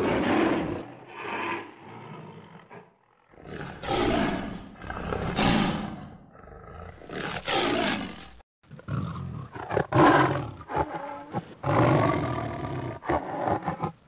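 Big-cat roar sound effects standing in for a sabre-toothed cat (Smilodon): a few long roars, then, from about seven seconds in, a run of shorter, choppier roars from a duller-sounding recording.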